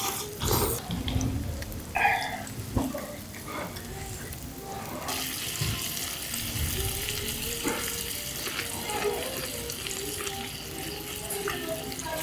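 Sliced king clam, beef and bean sprouts sizzling on a hot tabletop griddle, a steady hiss that gets louder about five seconds in. Near the start, a person slurps broth from a bowl.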